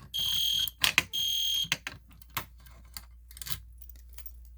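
EST Genesis electronic horn sounding temporal code 3: two half-second blasts of a high, steady tone about a second apart, closing a three-blast group. After that there are only a few light clicks and knocks.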